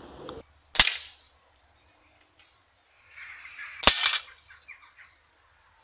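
Air rifle shooting at steel knockdown field targets: two sharp cracks about three seconds apart, each with a short ringing tail.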